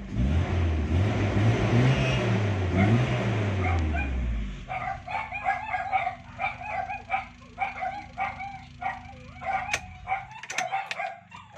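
The Toyota Revo's 7K-E four-cylinder engine is revved up twice, then its speed falls and it winds down to a stop about four and a half seconds in. After that comes a run of short repeated yelps, like a small dog yipping, with a couple of sharp clicks near the end.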